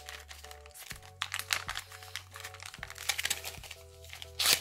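Crinkling and clicking of a cardboard chocolate box being handled and pulled open by hand, with a louder crackle near the end, over light background music.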